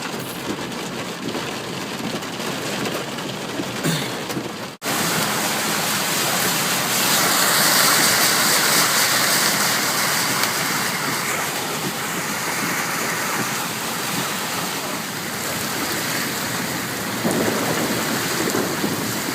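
Heavy rain pouring down, a steady hiss of water on surfaces; it cuts out for an instant about five seconds in and returns louder.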